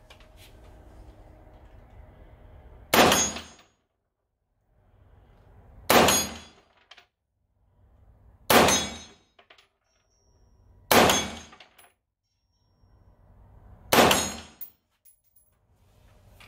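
AR-15 rifle with an adjustable gas block and H1 buffer firing five single .223 shots, spaced about two and a half to three seconds apart. Each shot is sharp and loud, with a brief echo.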